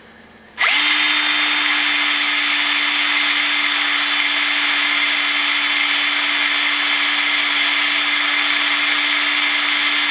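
Cordless drill running at a steady speed, spinning a metal 3D-printer hot-end tube in its chuck while fine-grit sandpaper is pressed against it to smooth down burrs. It spins up with a short rising whine about half a second in and stops suddenly near the end.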